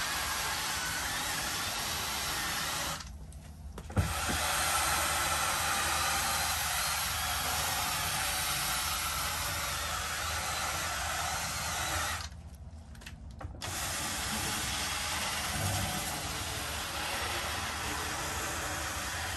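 Pressure washer wand spraying floor mats, a steady hiss over a low hum. The spray stops twice for about a second while the hum carries on, and a sharp knock comes as it starts again the first time.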